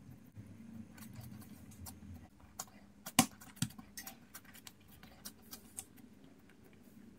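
Hands folding and pressing a large round of stuffed dough flat on a work surface: soft pats and small clicks, the sharpest a little after three seconds in with another just after, over a low steady hum.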